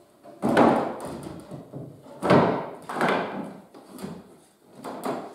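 Wooden cabinet door and frame of solid tulip wood being knocked and slid against each other on a wooden bench: a few wood-on-wood knocks and scrapes, the loudest about half a second in and again about two seconds in.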